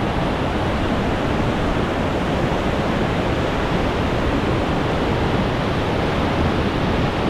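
Steady, loud rushing noise of wind and running water.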